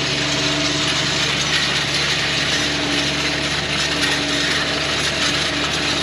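Tractor running steadily in the field, towing a seed drill, heard from inside the cab: a constant engine hum under a dense mechanical rattle.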